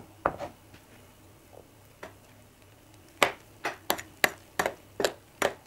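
Metal spoon stirring a thick vegetable dough in a glass bowl: a few scattered clicks, then from about three seconds in a steady run of sharp knocks against the glass, about three a second.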